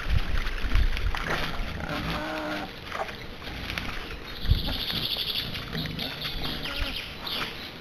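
Wild boar and piglets grunting: short low grunts again and again, some overlapping, with a longer high-pitched call about halfway through.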